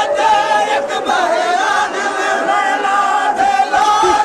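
A crowd of men singing a noha, a Shia lament, together without instruments, in several overlapping voices holding long, wavering notes.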